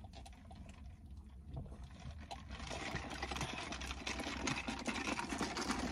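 A low steady rumble inside the car, and from about two and a half seconds in a crackly rustling that grows louder: paper drink cups and their packaging being handled.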